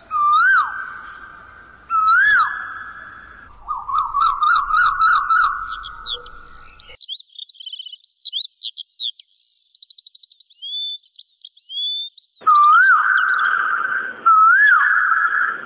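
Birds calling: repeated rising-and-falling whistled calls, then quick warbling notes, then a stretch of high chirps and trills, with the whistled calls returning near the end.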